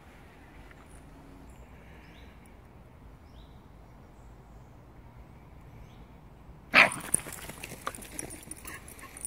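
A dog gives one sudden loud bark about seven seconds in, followed by scuffling and rustling as two small terriers meet on a leaf-covered path.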